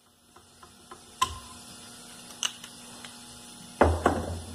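Light clicks and taps of hand tools being handled. About four seconds in there is a clunk and clatter as a cordless drill-driver is set down on a wooden workbench among wrenches. A faint steady hum runs under it.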